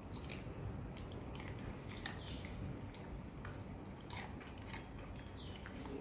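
A small dog crunching and chewing pieces of raw Japanese cucumber: a run of irregular crunches.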